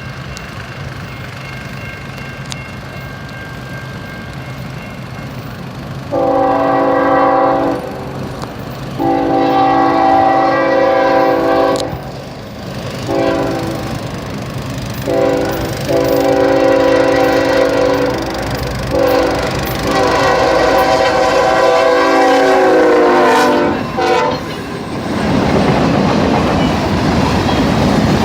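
Freight locomotive's air horn sounding a series of loud blasts, several long and a few short, after a few seconds of steady engine hum; the chord bends down in pitch as the last long blast ends. The train then passes close by with a loud rumble of wheels on rail.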